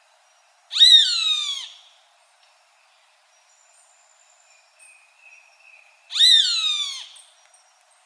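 Roadside hawk calling twice, about five seconds apart. Each call is a long scream of about a second that falls in pitch.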